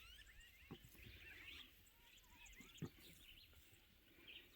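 Faint bird chirps and twitters, with two soft clicks about one and three seconds in.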